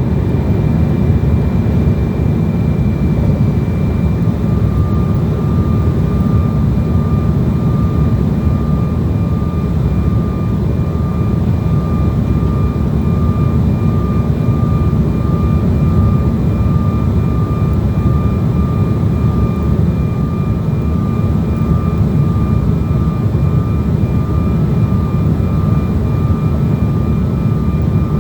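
Steady cabin noise of an airliner on approach, heard from inside the cabin: a low, even rush of engines and airflow. A faint high steady whine comes in about five seconds in.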